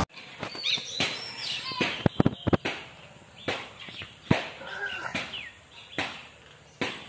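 Outdoor ambience with small birds chirping now and then, and a quick cluster of sharp clicks and knocks about two seconds in.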